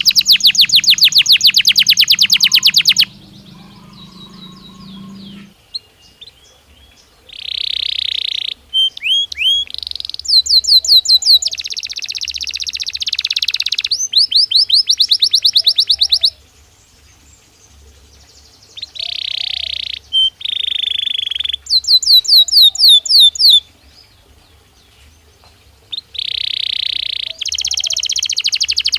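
Belgian canary singing: phrase after phrase of rapid trills and quick rising notes, with a few harsher buzzing rolls, broken by short pauses.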